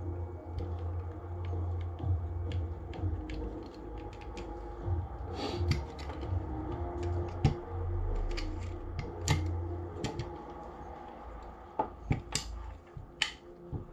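Sharp, irregular clicks and knocks of plastic and metal airsoft rifle receiver parts being handled and fitted together by hand.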